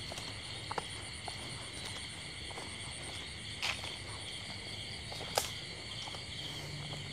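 Steady night chorus of crickets and other insects, with a few sharp crackles of footsteps on dry leaves and twigs along a dirt path, the loudest about halfway through and again near three quarters of the way.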